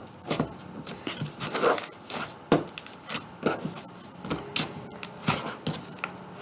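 Butter slime being kneaded and stretched by hand, with a few irregular squishes and clicks a second.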